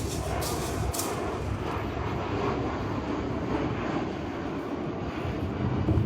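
An airplane flying overhead, a steady rumble throughout, with a few sharp knocks in the first second.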